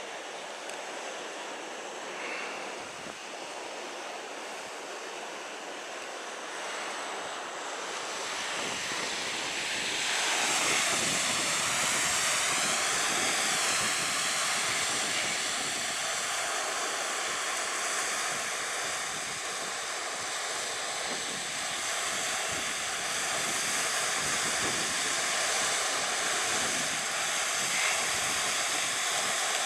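Sea surf washing onto a Baltic beach, a steady rush of breaking waves that grows louder about ten seconds in. A faint steady drone sits underneath in the later part.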